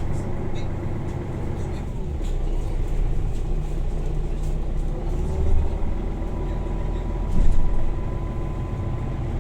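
Steady low rumble of a running motor vehicle, with a faint held tone over it and two brief louder swells about five and seven seconds in.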